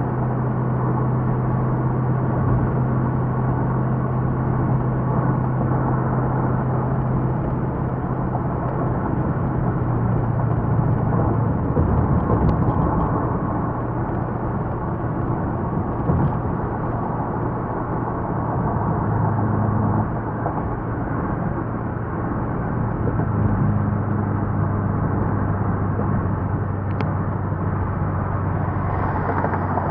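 Car driving at speed: a steady low engine hum over continuous road and tyre noise, the hum dropping in pitch a few times.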